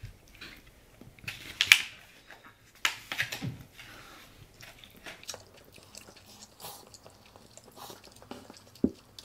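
People eating spicy instant noodles: chewing and slurping, with the two loudest slurps about one and a half and three seconds in. A short low thump comes near the end.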